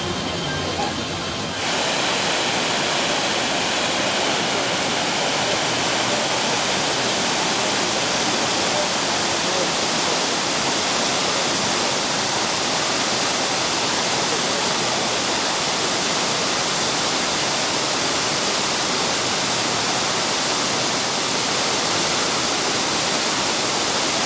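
Steady rush of falling, splashing water that starts abruptly about a second and a half in and holds level throughout.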